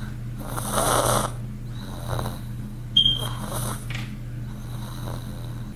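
Pug snoring in its sleep, a run of rasping snore breaths with the loudest about a second in. A brief sharp high squeak about three seconds in.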